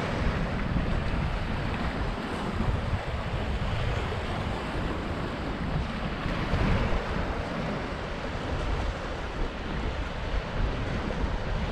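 Sea surf washing steadily onto a rocky shore, with wind buffeting the microphone.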